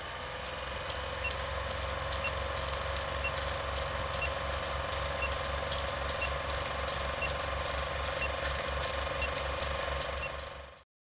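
Film projector running with a fast, even clatter, with a short faint beep about once a second, as in an old film-leader countdown; it cuts off suddenly near the end.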